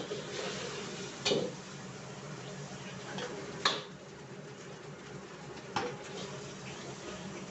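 Metal ladle striking and scraping a steel wok while fried rice is stir-fried: three loud clanks about two seconds apart, with lighter knocks between, over a steady hiss.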